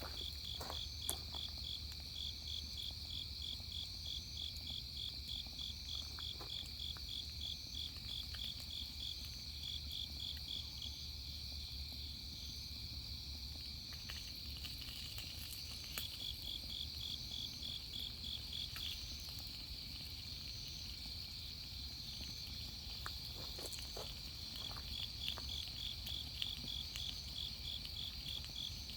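Night insects chirping: crickets keep up a steady high trill while another insect gives runs of rapid, evenly pulsed chirps, about three a second, that stop and start again. A few faint clicks come and go under them.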